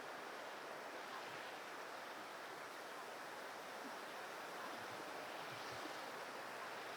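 Steady outdoor rushing noise, an even hiss with no distinct calls or events.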